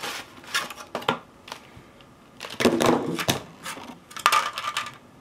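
Small gouache paint tubes being handled and set down on a table: a run of light clicks and knocks, with louder rattles around the middle and near the end.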